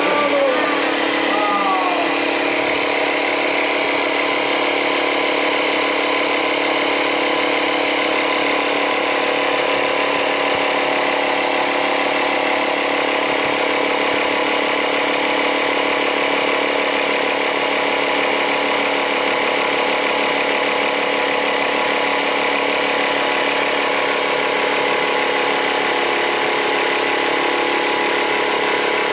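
Small electric air compressor from a puncture repair kit running steadily as it pumps up a tyre, a loud, even buzzing drone.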